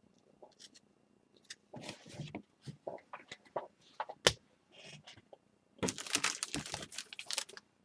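Faint handling of trading cards and packs with scattered light clicks and rustles and a sharp tap about four seconds in, then a dense crinkling and tearing of a plastic card-pack wrapper being torn open from about six seconds in.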